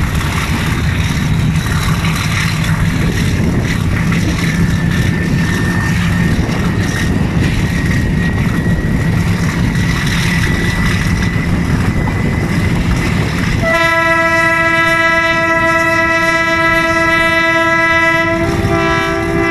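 GRU 20 diesel-electric locomotive accelerating a passenger train under load, heard from the coach just behind it: steady engine and wheel rumble with a faint high whine. About 14 seconds in, the locomotive's horn sounds one long, steady blast of about five seconds, shifting pitch just before the end.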